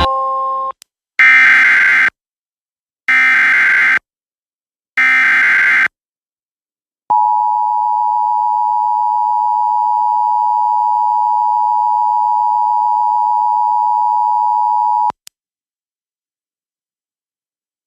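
Emergency Alert System SAME header: three bursts of rapid digital warbling, each about a second long and about two seconds apart. About a second after the last one, the two-tone EAS attention signal (853 and 960 Hz) sounds steadily for about eight seconds and cuts off abruptly. Together they open a Special Marine Warning alert.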